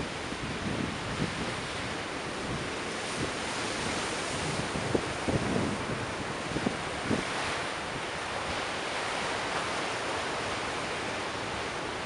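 Rough ocean surf rolling and breaking as a dense, steady rush of noise. Wind buffets the microphone with scattered low thumps, a few of them sharper around the middle.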